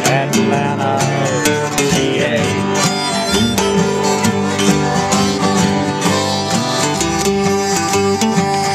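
Live band playing an instrumental break with no singing, led by guitar, at a steady beat.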